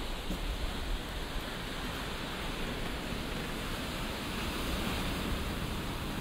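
Steady rushing noise of ocean surf along the shore, with wind on the microphone.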